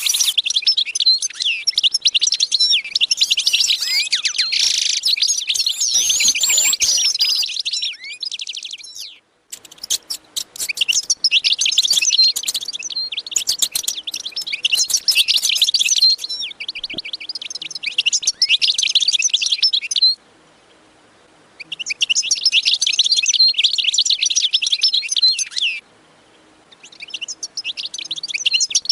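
Many small birds chirping rapidly and densely, with overlapping high-pitched calls. The chirping cuts off abruptly a few times for a second or so and then resumes.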